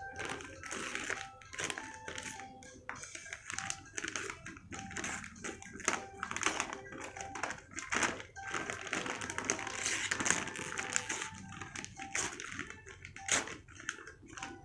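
Gift wrapping paper being torn and crinkled open by hand, an irregular run of rustles and crackles that grows busiest about two-thirds of the way through. Faint music plays underneath.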